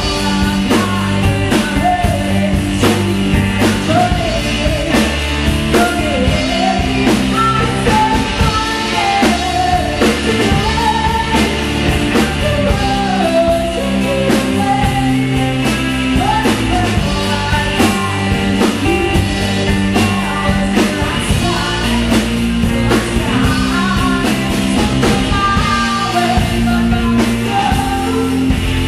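Live band playing a pop-rock song with a woman singing the lead, over a steady drum beat.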